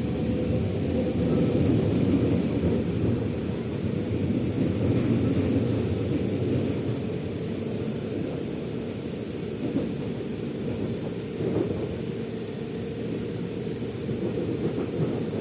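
Metro train running, heard from inside the carriage: a steady low rumble of wheels on rails with a faint steady whine that fades out and comes back near the end. A few light knocks come through in the second half.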